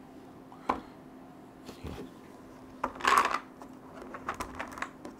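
The knob of a 3D-printed mason-jar candy dispenser is turned, making scattered plastic clicks. About three seconds in there is a louder short rattle of the mechanism and candy balls.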